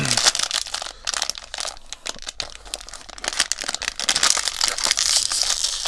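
Foil blind-box bag crinkling and crackling continuously as hands work at it and try to tear it open. The bag is hard to open.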